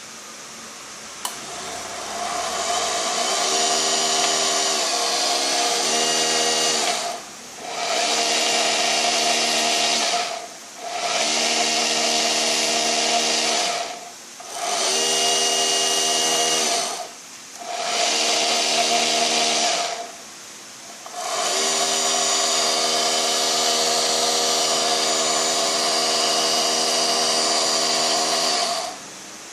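Armortek Tiger I model tank's electric drive motors and gearboxes running with a steady whine and buzz, started and stopped six times in spells of a few seconds. They are being tested for an abnormal noise.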